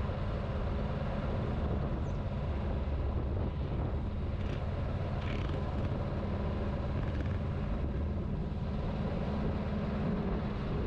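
2022 Honda CB500X's parallel-twin engine running steadily as the motorcycle is ridden along, with a steady low hum.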